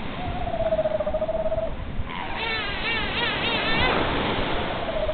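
Antarctic fur seal pups calling: a long, slightly wavering call, then a higher, warbling bleat with a quaver about halfway through, and another long call near the end.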